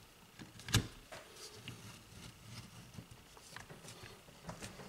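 A Mitsuba starter motor's housing being slid down over the armature by hand: faint rubbing and light clicks, with one sharper click about a second in.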